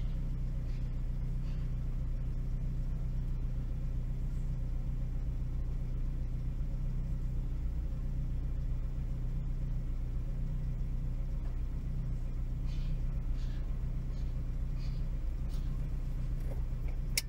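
A car running, heard from inside the cabin as a steady low hum.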